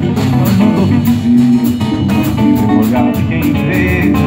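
Live band playing an instrumental passage of a samba song: acoustic guitar and electric guitars over bass and drum kit, with a regular drum beat.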